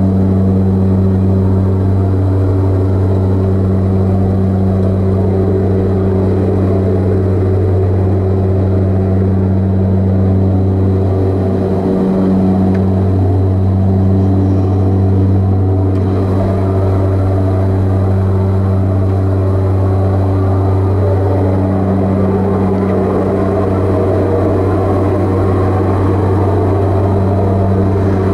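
Propeller aircraft engines heard from inside the cabin in flight: a loud, steady drone with a strong deep hum.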